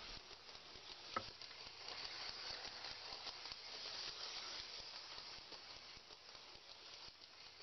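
Faint steady rolling clatter of a model train running on three-rail tubular track, with one sharp click about a second in.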